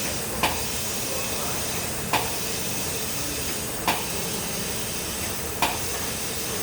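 Compressed air hissing steadily into a tyre through a tyre changer's inflation hose, with a sharp click about every second and three quarters, four in all.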